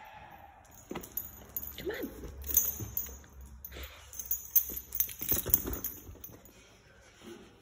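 A dog's collar tags jingling and its claws clicking on a hard floor as it walks about sniffing, with the loudest jingling about two and a half seconds in and again around five seconds in.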